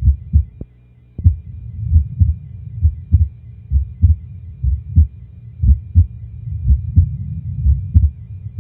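Cow's heart heard through a stethoscope: low lub-dub beats in pairs, about one a second, a rate within the 40 to 80 a minute normal for adult cattle.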